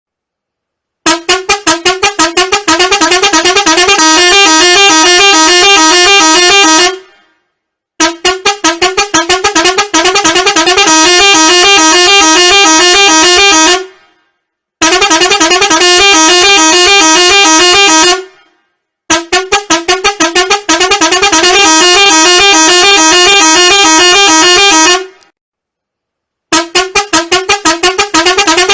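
Very loud horn-like alarm sound in repeated bursts of a few seconds: each burst opens with a run of rapid honks, about six a second, then goes into a continuous warbling blare, with short silent gaps between bursts.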